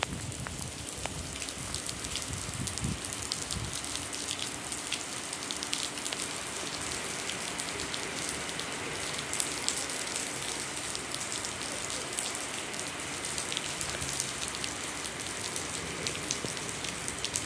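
Heavy rain falling steadily: a dense, even hiss with many small drop ticks.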